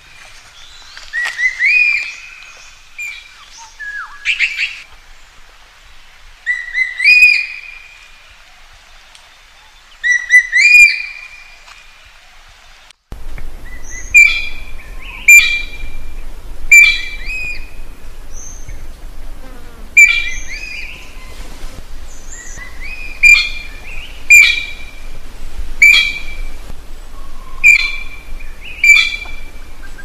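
Magpie calling over and over: short notes that sweep up and hold, each starting with a sharp click-like edge. The calls come in loose groups at first; about halfway through the background changes suddenly to a low steady hum and the calls run on about once a second.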